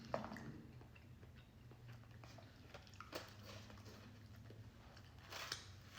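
Faint eating sounds: soft chewing and small scattered clicks, with a brief noisy rush about five seconds in, over a low steady hum.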